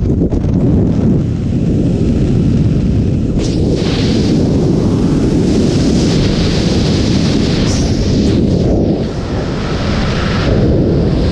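Skydiving freefall airflow rushing over the camera's microphone: a loud, steady low rumble of wind buffeting that dips briefly about nine seconds in.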